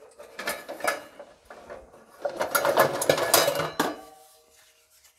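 Kitchen utensils and dishes clattering as they are handled: a few separate knocks in the first second, then a dense run of clinks and knocks lasting over a second about two seconds in.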